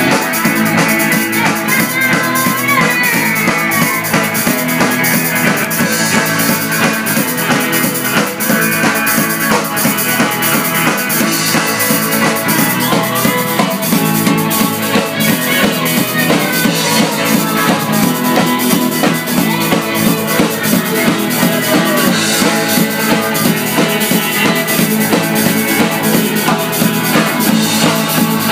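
A small live band plays a tarantella on drum kit, acoustic guitar and electric guitar, with a fast, steady drum beat driving it.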